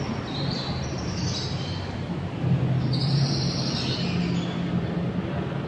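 Birds chirping in two short bouts, about half a second in and again around three seconds, over a low hum.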